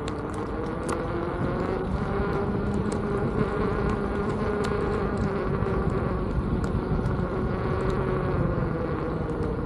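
Veteran Sherman S electric unicycle's hub motor whining steadily while riding, its pitch drifting slightly with speed, over wind rumble on the microphone and a few small clicks.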